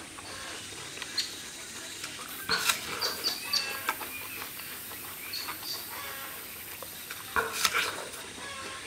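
Chickens clucking in the background while a person crunches into and chews a small apple, with two louder bites, one a few seconds in and one near the end.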